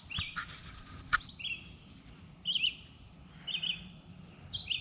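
A songbird calling: short high chirps repeated about once a second. A few faint clicks sound near the start and about a second in.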